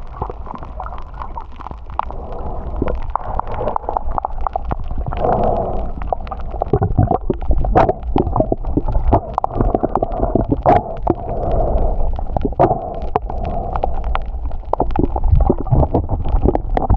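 Underwater sound through an action camera's microphone: a muffled low rumble and gurgle of moving water, with many scattered sharp clicks, two standing out near the middle.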